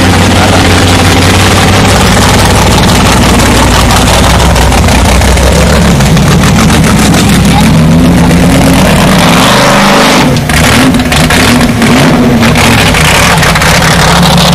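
Formula Offroad buggy's engine running loud, revving up and down as the car works through the pit, with a run of sharp cracks about ten seconds in.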